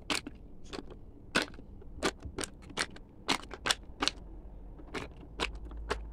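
A run of sharp, irregular clicks, about two or three a second, over a faint low hum.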